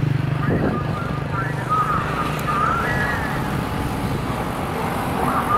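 Low, steady hum of a motor vehicle's engine running, easing off a little past halfway.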